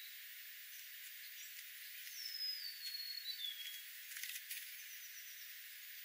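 Golden-crowned sparrow singing three clear whistled notes, each lower than the last, over about a second and a half. A short burst of clicks follows, the California scrub-jay pecking at seed on the ground, over a steady hiss.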